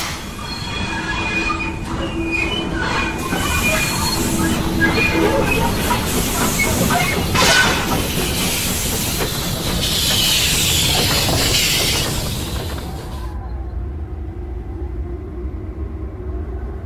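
Heavy railway train rolling on track: wagons rumble and clank, and the wheels squeal in several thin pitches over the first few seconds. A loud hiss of steam comes about ten seconds in. The sound then drops suddenly to a quieter low rumble.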